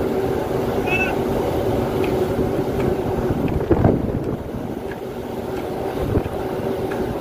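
Steady drone of a ship's engines and deck machinery on the open deck of a merchant ship underway, with wind buffeting the microphone in gusts about four and six seconds in.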